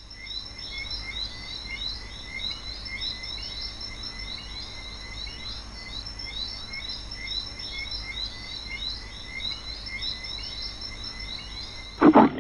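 An outdoor chorus of animal sounds: steady high insect tones with many short chirping calls repeating several times a second, over a low steady hum. A brief loud sound cuts in near the end.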